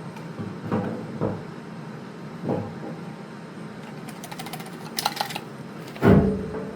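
Hand work on fuel tank parts: a few knocks and clunks, a quick rattle of sharp ticks about five seconds in, and a heavy thump near the end, the loudest sound.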